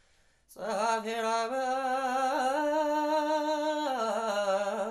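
A solo voice chanting a Ge'ez liturgical hymn, entering about half a second in and holding long, drawn-out notes.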